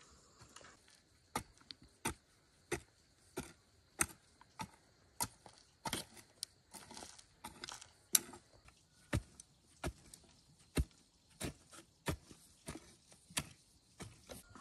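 Repeated chopping strikes of a hand tool, about one and a half a second at an even pace, with a brief lull a little past halfway.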